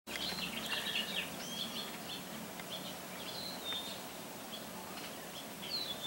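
Songbirds singing: overlapping short chirps and whistled notes, busiest in the first second or so, with a falling whistle near the end, over a faint steady hum.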